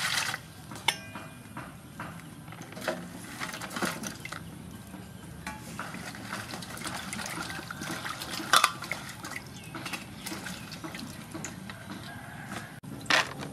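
Hands washing green onions and a carrot in a metal basin of water: splashing and sloshing, with a few sharp knocks against the basin. It opens with the tail of a pour of water into the basin.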